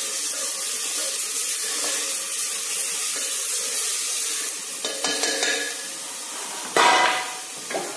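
Cluster beans and onion-garlic masala sizzling in hot mustard oil in an open pressure cooker while a spatula stirs and scrapes the pot. The sizzle eases after about four seconds, a few knocks follow, and there is a loud clatter near the end.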